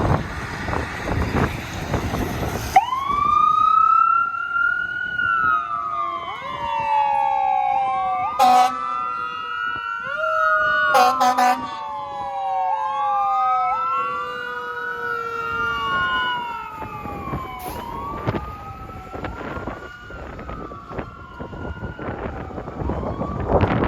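Fire truck siren wailing, its pitch sweeping up quickly and falling slowly over and over, with several wails overlapping. The truck's air horn cuts in with a short blast about eight seconds in and two quick blasts around eleven seconds in. A broad rush of noise fills the first few seconds before the siren starts, and the wailing fades near the end.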